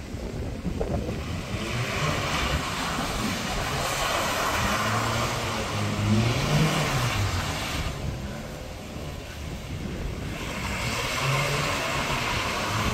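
A Mazda MX-5 Miata's four-cylinder engine revs up and down as the car drifts across wet tarmac. A loud hiss of tyres sliding on the water comes in two long stretches, easing off for a couple of seconds in the middle.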